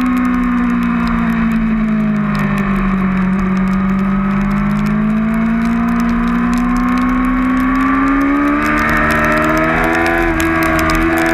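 2008 Yamaha R6's inline-four engine running at high revs through a long corner. The pitch dips slightly over the first few seconds, climbs steadily as the throttle opens, then steps up about nine seconds in.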